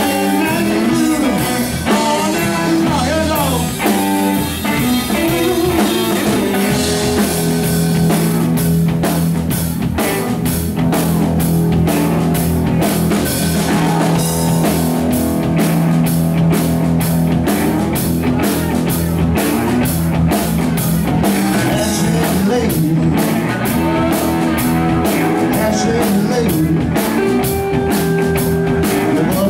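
Live rock band playing a bluesy groove: two electric guitars over a drum kit keeping a steady beat.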